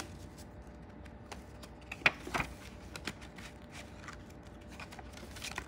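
Faint rustling and light clicks of paper banknotes being tucked into a cash-envelope binder and its envelope pages being turned, with a couple of sharper clicks about two seconds in.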